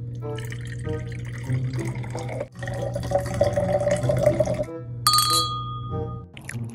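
Liquid poured from a glass bottle into a glass champagne flute, a steady stream splashing into the glass for about four seconds. About five seconds in, a glass rings once with a clear tone that dies away.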